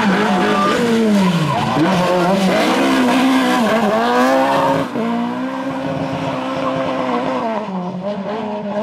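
Rally car engine revving hard under acceleration, its pitch climbing and dropping with each gear change and lift as the car passes. About five seconds in the sound changes abruptly, and a steadier engine note follows, falling in pitch near the end.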